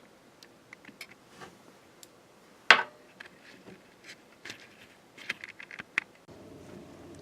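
Small clicks and taps of a solar charge controller's plastic case and parts being handled and put back together, with one sharp knock a little under three seconds in and a cluster of clicks near the end.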